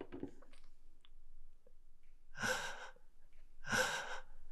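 A woman sighing twice, two breathy exhales a little over a second apart.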